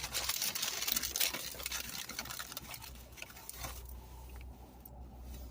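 Close, quick rustling and crackling from eating a takeout burger-and-fries meal, which fades out about three and a half seconds in, leaving a quiet steady low hum.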